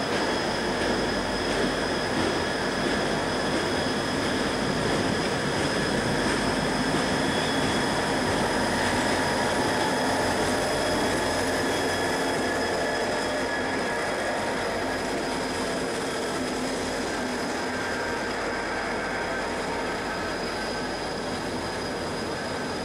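Two BL class diesel-electric locomotives and their freight train run past at speed, a continuous rumble of engines and rolling wheels with a steady high-pitched whine over it. It is loudest as the locomotives go by and eases a little as the empty steel wagons follow.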